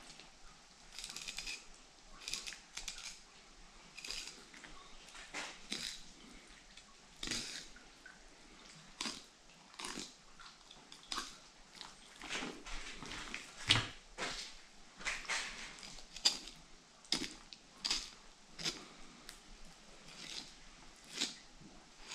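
Fillet knife slicing through a northern pike's slimy flesh along the Y bones: a string of short, irregular wet cutting strokes, roughly one a second, fairly quiet.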